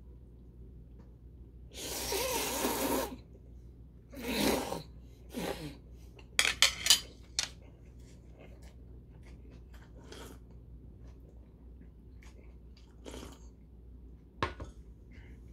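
A man slurping a mouthful of spicy cold noodles in one long, noisy slurp, then two shorter ones. These are followed by a quick run of sharp, wet smacking clicks and softer chewing sounds, with one sharper click near the end.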